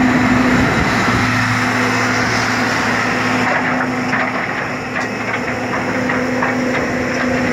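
John Deere 200LC hydraulic excavator's diesel engine running steadily with the hydraulics working as the boom and bucket are moved. Light clicks and knocks join in from about halfway through.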